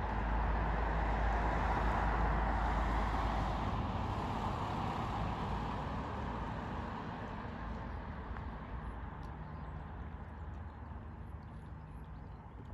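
A passing vehicle: a steady rushing road noise that is loudest in the first few seconds and slowly fades away.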